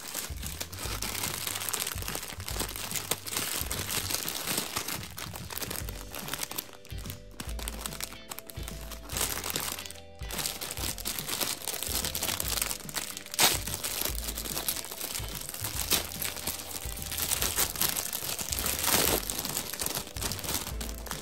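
Plastic Maruchan ramen noodle packet crinkling as it is handled and torn open, with sharp crackles now and then, over light background music.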